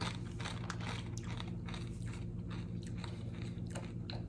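A person biting and chewing a crisp chip, a quick run of crunches over a steady low hum.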